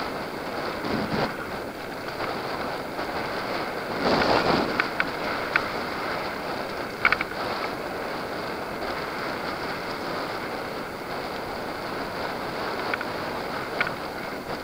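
Mountain bike rolling fast over a dirt trail: a steady rush of tyre noise and wind on the microphone, with a louder surge about four seconds in and several sharp clicks and rattles from the bike over bumps.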